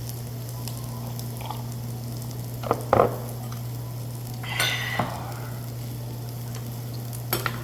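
Food sizzling steadily on a hot cooking surface at the table, over a steady low hum. Utensils clatter briefly about three seconds in, with another short clatter near five seconds.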